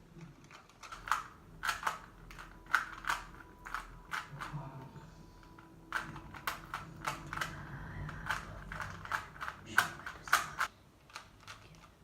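A 3x3 Rubik's cube being turned quickly by hand: irregular clusters of plastic clicks and rattles as the layers rotate, thinning out near the end.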